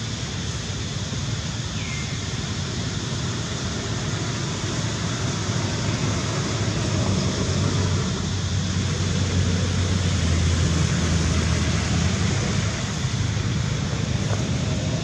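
Steady outdoor background noise with a low rumble, growing a little louder past the middle.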